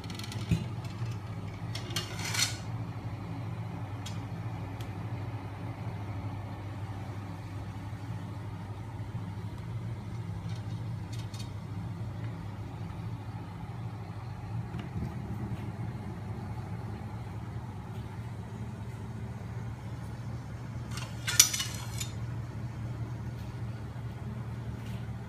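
Homemade magnet motor machine running: a steady hum from its spinning steel flywheels and crankshaft, driven by a small 12 V electric motor. Two brief metallic clattering bursts break in, about two seconds in and again near the end.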